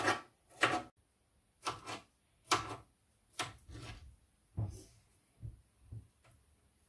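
Knife cutting a nectarine into small pieces on a plastic chopping board: about ten short, uneven knocks as the blade goes through the fruit and hits the board.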